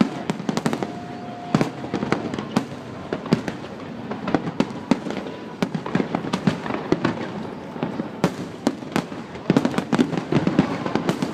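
Aerial fireworks bursting in rapid, irregular succession: many sharp bangs, some overlapping, with crackle between them.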